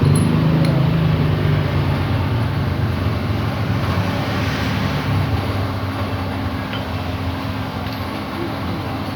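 A small motorcycle engine running steadily at idle, a low even hum with a slight wander in pitch over the first couple of seconds.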